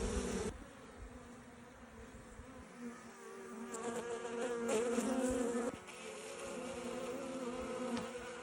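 Honeybees of a newly hived swarm buzzing in flight around the hive entrance, a steady hum that swells for a couple of seconds midway as bees pass close.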